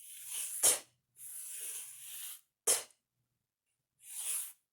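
A fingertip tracing the letter t in a tray of cornmeal, a gritty hiss, each pass followed by a sharp, breathy spoken 't' sound; this happens three times, about two seconds apart.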